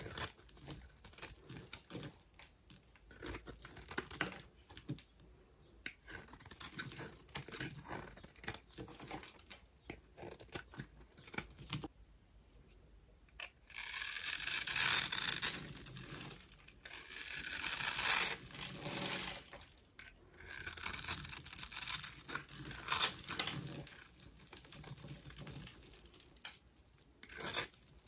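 Knife carving a block of dry soap into cubes, a crunchy crackle. Light, scattered crackles for the first half, then three longer, much louder crunchy cuts, and a sharp snap soon after.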